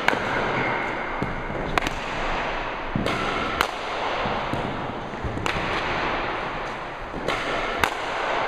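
Batting practice in a net cage: three sharp cracks of a bat hitting pitched baseballs, about four seconds apart, each one a little after a lighter knock, with further knocks of balls striking the netting and floor.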